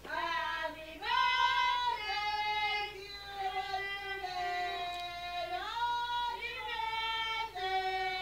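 A person singing without accompaniment: long held notes, each about a second or more, with slides up and down between them.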